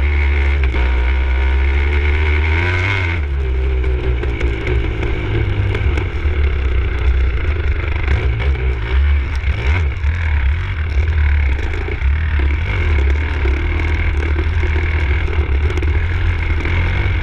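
Enduro motorcycle engine running under throttle as the bike is ridden over rough field tracks. Its note climbs steadily for the first three seconds, then drops and carries on unevenly. A heavy low rumble of wind buffeting the camera microphone runs underneath, along with scattered knocks from the bike over the bumps.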